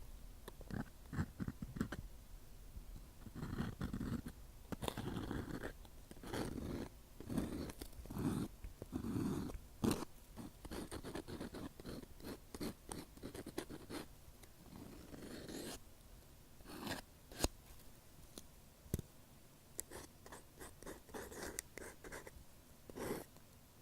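Close-up ear-cleaning ASMR sounds: an earpick scratching and rubbing at the microphone in short, irregular strokes, with a few sharp clicks.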